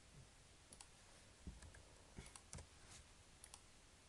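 Faint, scattered clicks of a computer mouse and keyboard over quiet room tone, several of them in pairs.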